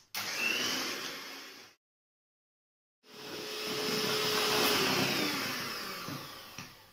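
Electric hand mixer whirring as it beats eggs with sugar for a sponge batter, in two runs: a short one of under two seconds and a longer one of about four seconds. Its pitch sinks and the sound fades toward the end of the second run.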